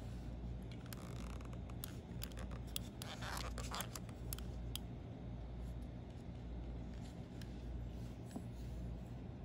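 Fingers handling a plastic wireless mouse, making scattered light clicks and taps, with a short scraping rub about three seconds in as the AA battery is pressed into its compartment. A low steady hum runs underneath.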